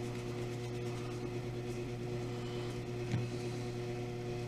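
Steady electrical mains hum, with one faint click about three seconds in.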